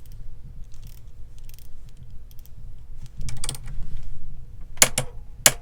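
Click-type 3/8-inch torque wrench being set to and pulled to 90 foot-pounds on a bolt: a run of small clicks a little past the middle, then two sharp, loud clicks near the end.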